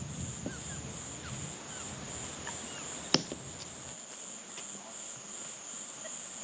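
Insects, crickets or similar, droning steadily at a high pitch, with a few faint short chirps in the first half. A single sharp knock about three seconds in.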